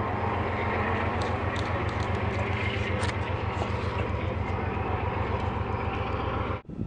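A motor or engine running steadily: a low hum with a fast, even pulse, cutting off suddenly near the end.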